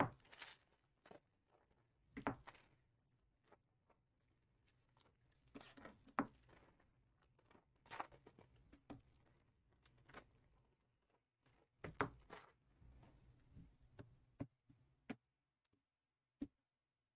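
Faint, scattered rustling, tearing and clicking of trading-card packaging being opened and handled. The short sounds come at irregular moments, every second or two.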